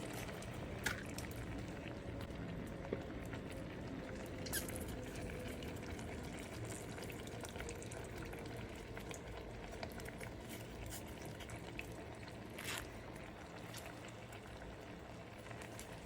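A pot of water with oranges and lemons simmering on the stove, a soft steady bubbling, with a few faint taps.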